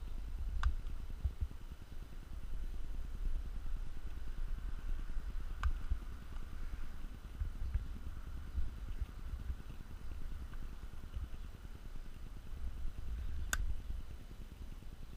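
Low, uneven handling rumble of hand work on a car door mirror's glass and plastic backing plate, with three sharp clicks, the last and loudest near the end.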